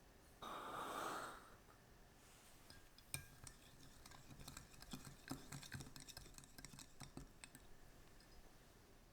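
Kitchen utensils and bowls clinking and tapping lightly in a run of scattered small clicks, after a short rush of noise about half a second in.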